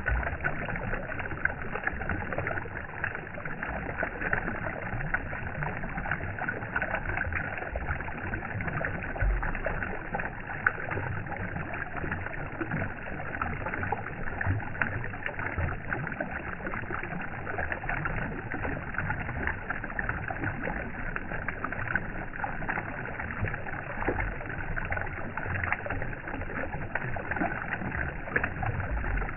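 Running water: a steady, even rush with a brighter splashing hiss and a few low thumps.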